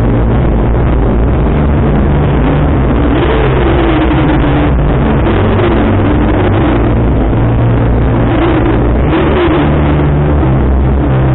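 Motorcycle engines running and revving, rising and falling in pitch, over loud music with a deep bass line that steps from note to note.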